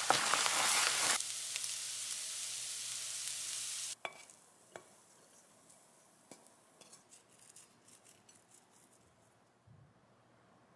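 Cauliflower rice and egg sizzling in a stainless steel frying pan as they are stirred, the sizzle cutting off suddenly about four seconds in. After it, a few faint clinks of a spoon on a ceramic plate and some light scraping as the fried rice is served.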